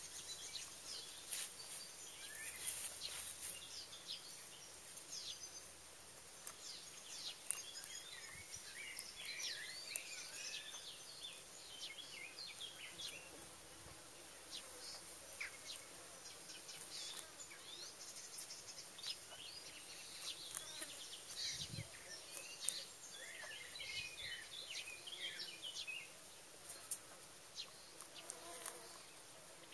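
Faint outdoor chorus of small songbirds chirping and twittering in short bursts over a steady insect buzz, with scattered light clicks. A brief lower call comes near the end.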